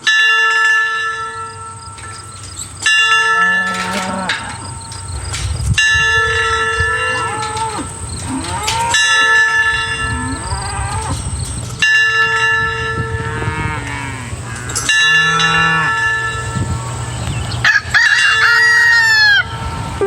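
A bell-like tone struck about every three seconds, each strike ringing on, with farm animals calling between the strikes and a higher call near the end.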